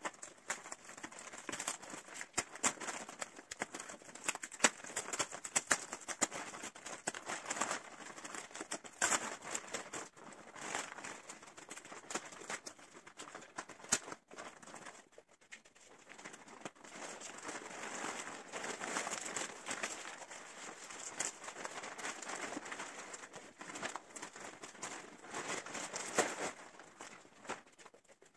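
Clear plastic wrapping of a roll-packed spring mattress being pulled, peeled and crumpled by hand, a continuous crackling rustle with a short lull about halfway through.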